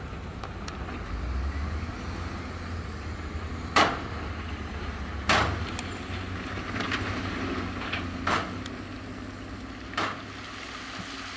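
Heavy earthmoving machine's engine running steadily, with four sharp, loud knocks spaced over several seconds, the first about four seconds in.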